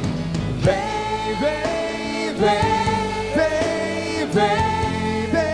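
Worship singers at microphones and a congregation singing a slow hymn, holding long notes.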